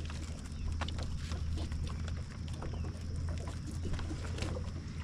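Boat under way: a steady low motor hum, with scattered small clicks and knocks over it.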